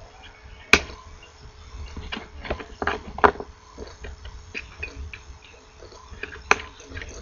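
Diagonal cutters snipping the soldered component leads off a small circuit board: sharp snaps, three of them loudest at about one second, three seconds and six and a half seconds in, among lighter clicks and rustles of the board and tool being handled.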